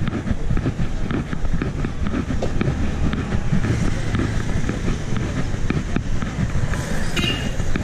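Street ambience from a walking chest-mounted camera: steady low rumble of wind on the microphone mixed with passing traffic, with a brief higher-pitched sound about seven seconds in.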